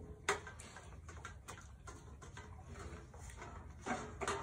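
Two Cane Corsos eating from stainless-steel bowls: irregular clicks and knocks of teeth, tongues and food against the metal.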